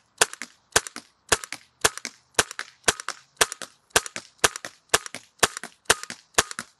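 PepperBall VKS compressed-air launcher firing inert rounds from its magazine, one sharp pop after another at a steady pace of about two a second, each pop followed at once by a fainter second crack. The magazine is being emptied in a steady string of semi-automatic shots.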